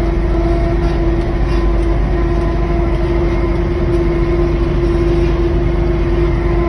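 Large vehicle's engine running steadily while driving, heard from inside the cab: a constant low rumble with a steady whine over it.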